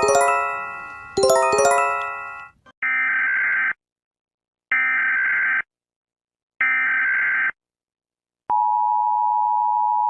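Emergency Alert System sequence: two ringing chime strikes, then three one-second bursts of SAME digital header data, then the steady two-tone EAS attention signal, which begins about eight and a half seconds in.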